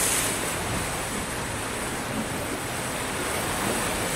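Sea waves breaking and washing onto a sandy shore: a steady rush of surf that swells slightly at the start.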